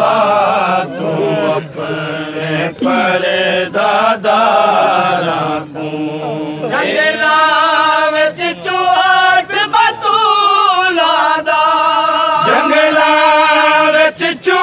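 Voices chanting a Saraiki noha, a Shia mourning elegy, in long wavering sung lines. About seven seconds in, the chanting moves to a higher, louder line, and short sharp knocks are scattered through the second half.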